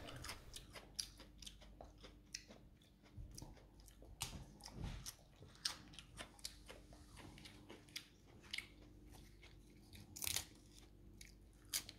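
Crisp Danstar crisphead lettuce leaves crunching and crackling faintly as they are handled, torn and bitten: a scattered run of short crackles, with a louder cluster about ten seconds in.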